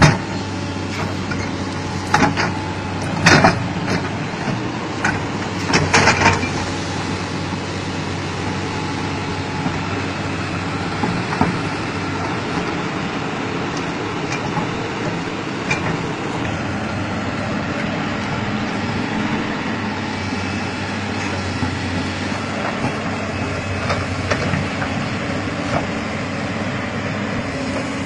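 Zoomlion crawler excavator's diesel engine running steadily as the machine works its bucket in floodwater, with several sharp knocks and clanks in the first six seconds or so.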